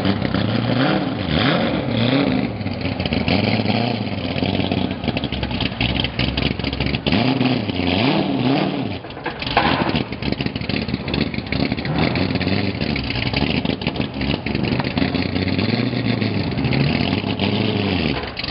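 Corvette C6 race car's V8 running at a loud, rough idle and blipped in several short revs, its pitch rising and falling.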